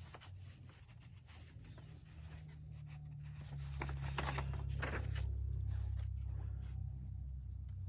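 Paper rustling as the pages of a model kit's instruction booklet are handled and turned, with a low rumble of handling noise that grows louder about halfway through.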